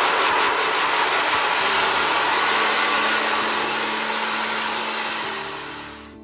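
Handheld hair dryer blowing steadily, fading out near the end. Soft music comes in faintly underneath about two seconds in.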